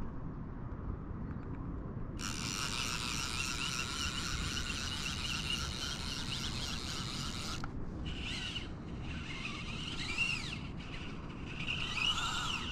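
Fly reel's click-and-pawl drag buzzing as line is pulled from the spool, in one steady run of about five seconds, then three shorter bursts that rise and fall in pitch as the spool speeds up and slows, typical of a hooked fish taking line.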